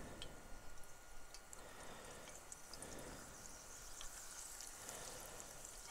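Faint sizzling with scattered light crackles: herb butter melting into hot oil in a cast iron skillet as it is pushed around.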